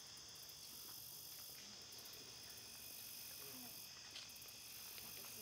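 Insect chorus of crickets: several steady trills at different high pitches, with a still higher buzzing call that comes in short bursts every couple of seconds.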